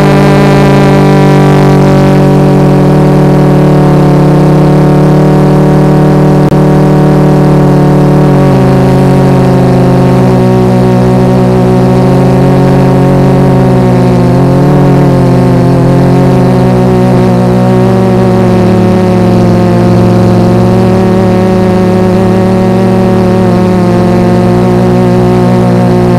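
Motors and propellers of a Tarot 650 multirotor drone, a loud, steady multi-tone hum heard in flight close to the microphone. The pitch shifts a little at about eight seconds in and again at about fifteen seconds in.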